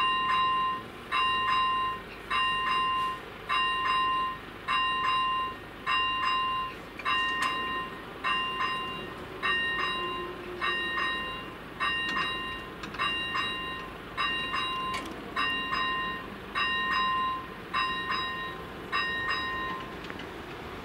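Czech railway level crossing's electronic warning bell ringing about once a second while the warning lights flash and the barriers lower. The bell stops near the end as the barriers come fully down.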